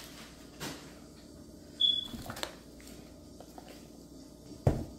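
Gloved hands handling plastic-wrapped string cheese packs: a few light clicks and knocks, a short high squeak about two seconds in, and a heavier thump near the end.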